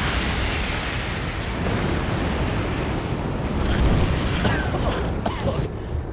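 Explosion sound effect: a long, loud blast with a deep rumble and a hiss that trails off near the end.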